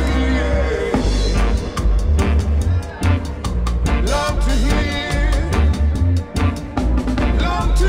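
Live reggae band playing, with a drum-kit beat and heavy bass under lead and backing vocals.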